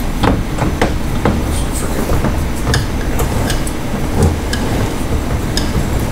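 A boat steering helm being cranked round by its wheel, with the push-pull steering cable's rod running out. It makes irregular mechanical clicks and rattles, several a second, over a low rumble.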